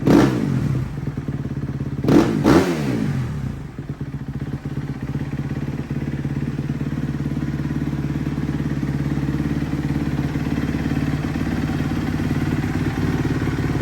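2015 Kawasaki KX250F single-cylinder four-stroke engine through its stock exhaust, blipped quickly at the start and twice more about two seconds in, then settling to a steady idle.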